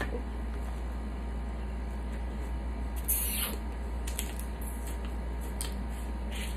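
Close-up eating sounds of snow crab legs: wet sucking and smacking as meat is pulled from the shell, with short clicks and a louder sucking burst about three seconds in.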